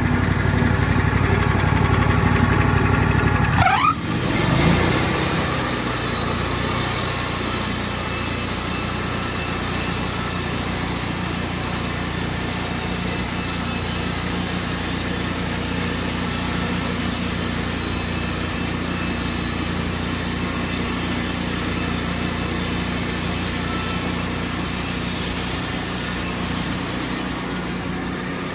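Wood-Mizer sawmill engine running steadily. About four seconds in the sound changes abruptly with a brief rising whine, then settles into a steadier, noisier run.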